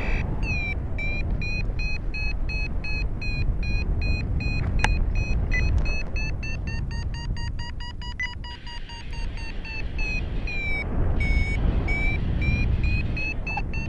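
Paragliding variometer beeping in short rapid tones, about four a second, the pitch shifting as the rate changes, signalling that the glider is climbing. The beeps give way to a fainter steady tone for a couple of seconds past the middle, then resume at a lower pitch that rises again. Wind rumbles on the microphone throughout.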